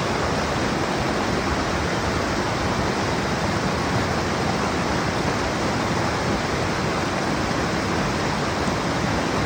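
A swollen stream in flood, its water rushing in a steady, loud, unbroken roar.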